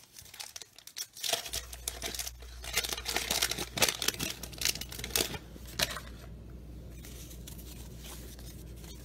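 A baseball card pack wrapper being torn open and crinkled: irregular papery crackles for several seconds. A steady low hum sets in about a second and a half in.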